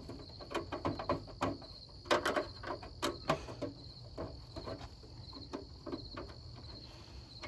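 Screws being taken out of a CRT television's plastic back cover by hand: scattered clicks and light knocks of the screwdriver and screws, busiest in the first few seconds. Crickets chirp steadily in the background.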